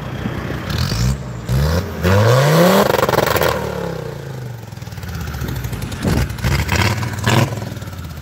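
Remapped Land Rover Discovery TD5 five-cylinder turbo-diesel revved from idle: the engine note climbs about a second in, holds near the top for a second or so, then falls back to idle, followed by a few short blips of the throttle near the end.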